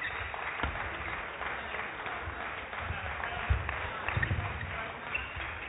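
Badminton doubles rally: several sharp racket strikes on the shuttlecock and the low thuds of players' footwork on the court, over a steady murmur of the sports hall.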